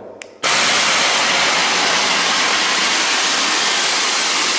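Single-tube CO2 jet machine (TIPTOP TP-T25) firing a continuous jet of liquid CO2 through its high-pressure valve: a loud, steady hiss that starts suddenly about half a second in.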